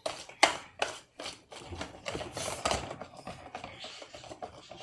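Irregular clicks and knocks, like a utensil tapping and scraping against a container while a thick craft mixture is stirred; the sharpest knock comes about half a second in.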